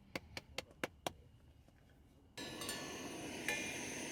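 A quick run of six sharp clicks or taps, about five a second, in the first second. About two and a half seconds in, the sound cuts abruptly to a steady outdoor hiss.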